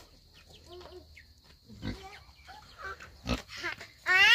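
Farmyard animals calling in short scattered sounds, with a few soft thuds, and one loud short call falling in pitch near the end.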